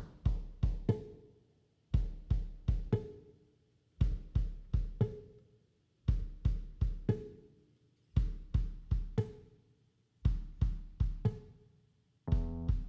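Background music with a steady drum beat: a group of about four hits, with a heavy kick drum, repeats roughly every two seconds.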